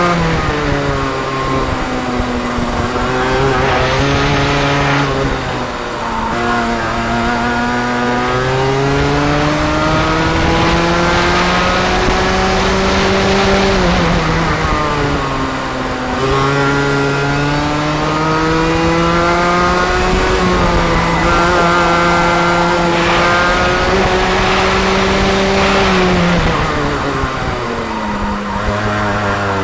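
125cc two-stroke kart engine at racing speed, heard from on board the kart: the engine note climbs steadily for several seconds at a time, then drops quickly before climbing again, a few times over, as the revs rise along the straights and fall into the corners.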